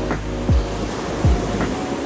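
Lo-fi background music: held chords over a deep kick drum that falls in pitch, striking about every 0.8 s.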